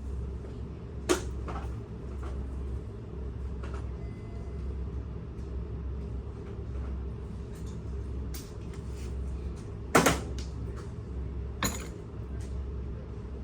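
Sharp clicks and knocks of parts being handled during the assembly of a water pump motor: one about a second in, the loudest near the end, and another shortly after, with smaller clicks between, over a steady low hum.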